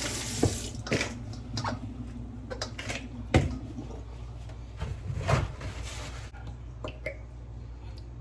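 Kitchen handling noises: a string of irregular light knocks and clicks over a steady low hum.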